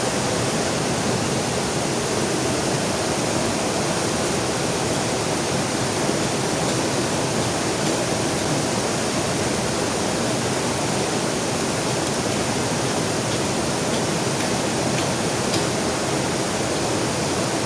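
Heavy rain pouring beside a flowing river: a steady, even rush of water noise.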